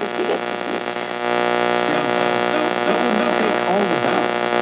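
1973 GM AM push-button car radio putting out a steady, loud hum of many even tones, with a faint broadcast voice barely coming through underneath. The sound cuts off above a narrow band, as AM reception does.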